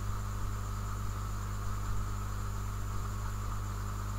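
Steady low electrical hum with a thin higher whine and hiss from the recording setup; nothing else happens.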